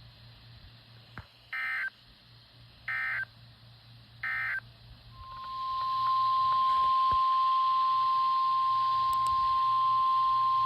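Three short warbling bursts of SAME digital alert data, about a second and a half apart. About five seconds in, NOAA Weather Radio's steady single-pitch 1050 Hz warning alarm tone starts and holds, with radio hiss rising beneath it. This tone signals that an urgent warning message is about to follow.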